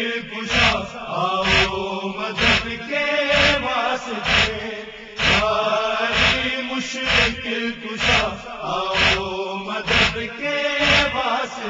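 A noha being chanted by men's voices over matam: hands struck against chests in a steady beat about once a second.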